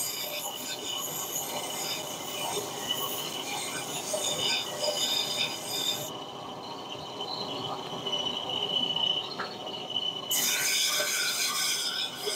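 Power sander grinding the ends of steel bars to a taper: a steady high whine with the hiss of metal on the abrasive. About halfway through, the hiss drops away for a few seconds while the tool keeps whining, then the grinding resumes.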